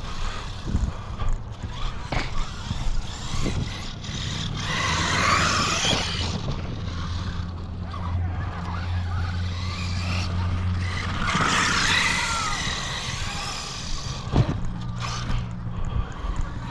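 Arrma Kraton 6S EXB RC truck being driven: its brushless motor whines up and down in two runs, about five and twelve seconds in, with tyres scrabbling on dirt. There are a few sharp knocks from bumps and landings.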